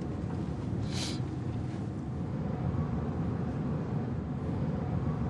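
Steady low rumble of a moving car heard from inside the cabin: engine and road noise. There is a brief hiss about a second in.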